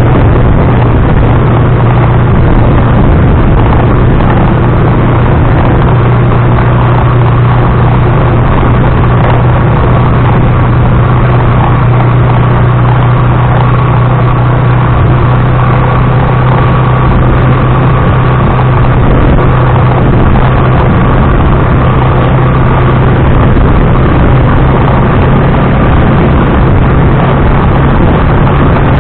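Motorcycle tricycle running on the road, heard from an action camera mounted on it: a loud, steady engine drone under dense rumbling road and vibration noise.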